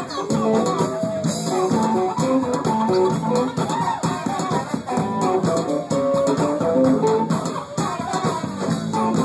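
Live band playing an instrumental passage, with busy, quick melodic lines over a steady drum beat.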